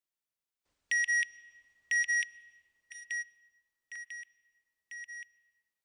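Synthesized electronic beeps as a logo sting: five double beeps about once a second, starting about a second in. Each is a high tone with overtones, and the later pairs are fainter than the first two.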